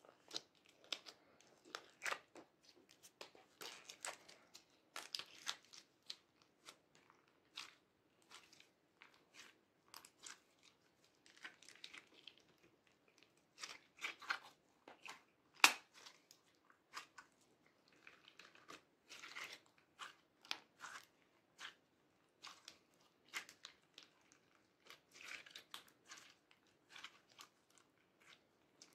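Purple slime squeezed, stretched and pressed between fingers, giving faint, irregular sticky crackles and small pops, with one sharper pop about halfway through.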